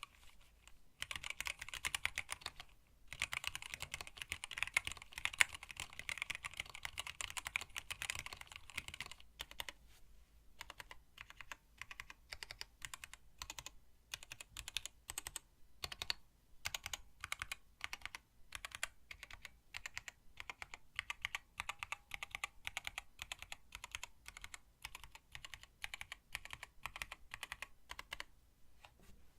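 Typing on a hand-wired split mechanical keyboard with Tealios linear switches, blank PBT keycaps and a stacked acrylic case. The keys clatter in fast, dense runs for the first several seconds. After that the typing turns sparser and more halting, then picks up again into quick runs before stopping near the end.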